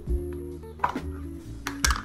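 Background music with sustained notes and a steady slow beat.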